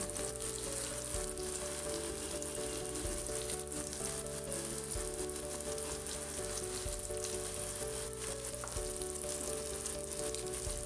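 Onion, tomato and ginger-garlic masala sizzling steadily in oil in a kadai, with a few short scrapes of a spoon stirring it.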